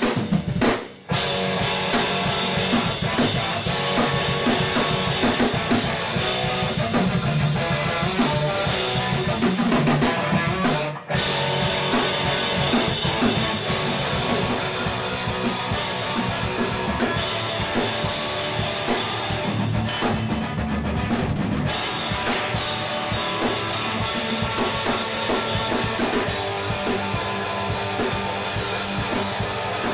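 Electric guitar through an amplifier and a drum kit with cymbals, played live together as an instrumental duo. The music cuts out briefly twice, about a second in and about eleven seconds in.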